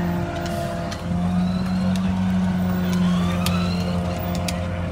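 Engine of an Amrep side-loader garbage truck running steadily at close range: a low, even hum.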